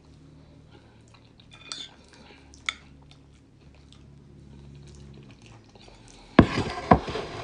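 Fork clinking and scraping lightly on a plate as mashed potatoes are scooped up, a few small clicks over a faint low hum. Near the end comes a short burst of loud knocks and rustling.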